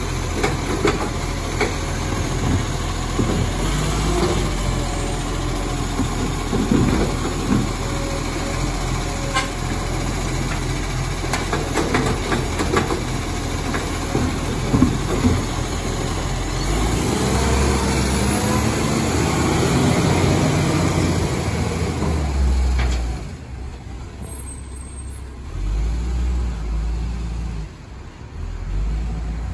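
Side-loader garbage truck's engine running while its automated arm lifts and tips wheelie bins, with repeated knocks and clatter of bins and falling rubbish. From about 17 s the engine works harder as the truck moves off, and it grows fainter from about 23 s.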